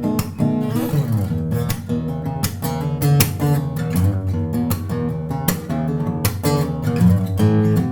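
Bellame W-180 acoustic guitar being played: chords strummed at a steady rhythm, with some single notes in between.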